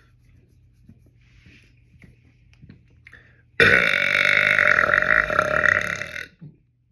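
A man's single loud, long burp. It starts suddenly about halfway through, lasts nearly three seconds, then trails off and stops.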